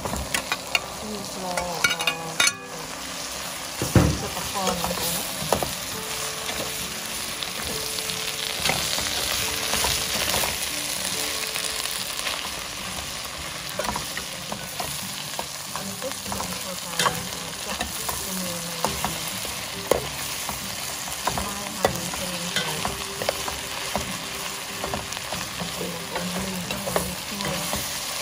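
Broth boiling hard in a stainless steel pot as raw fish pieces go in, with a steel ladle clinking and scraping against the pot as it stirs. One heavy thump about four seconds in.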